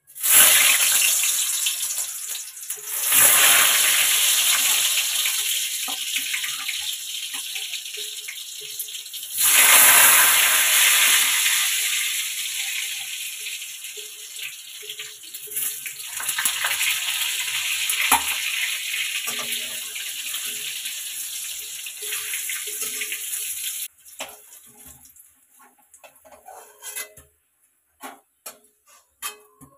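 Peeled potatoes dropped into hot oil in a kadai, each one setting off a loud burst of sizzling that slowly dies down. There are three fresh bursts in the first ten seconds. Near the end the sizzling cuts off and a metal spatula taps and scrapes in the pan.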